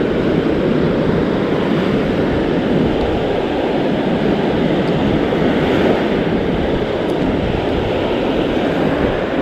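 Steady rush of waves breaking on the beach, mixed with wind buffeting the microphone.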